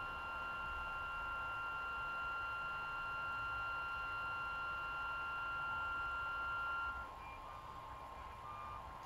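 Stepper motors of a delta 3D printer whining as the carriages move during auto-calibration: a steady high whine of a few pure tones, which drops about seven seconds in and is followed by a few short separate tones as the carriages make short moves.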